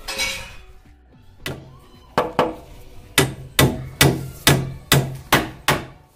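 Hammer striking a wooden block held against a wooden door frame, knocking the frame pieces into place: sharp wooden knocks, a few scattered at first, then a steady run of about two to three blows a second through the second half.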